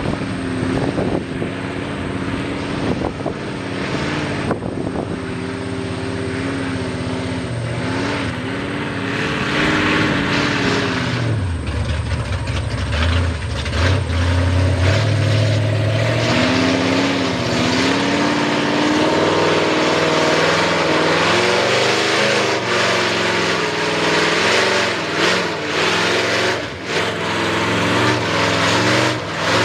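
Lifted Ford short-bed mud truck's V8 on open headers revving hard while it churns through a mud pit, the engine note rising and falling. Around twelve seconds in the revs drop very low and the engine lugs, then it revs back up and keeps surging.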